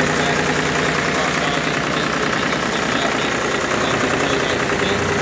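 FarmTrac 35 tractor's three-cylinder diesel engine idling steadily.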